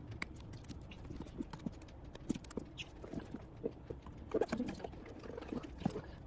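Hands handling a tablet and its packaging: irregular light taps and clicks.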